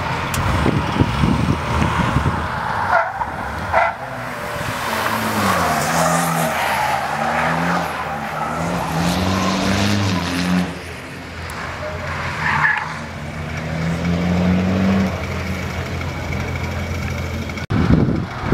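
A car being driven hard round a track corner, its engine revving up and down through the gears, with a few short tyre squeals.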